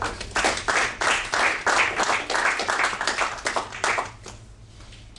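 A small group applauding: separate claps run together for about four seconds, then stop.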